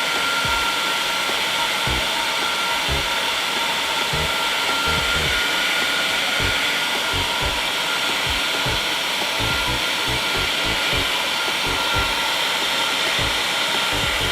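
Hair dryer running steadily, blowing warm air into a thin plastic bag: a continuous rush of air with a thin whine over it.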